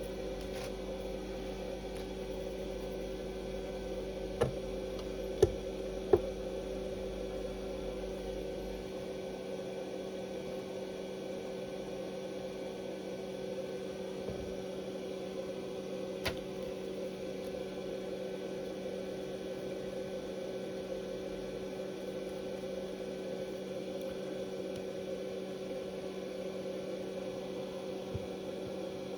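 Steady electrical hum, as of bench equipment running, with a very low rumble underneath that stops about nine seconds in. A few sharp clicks of small parts or tools being handled, three close together early on and one more later.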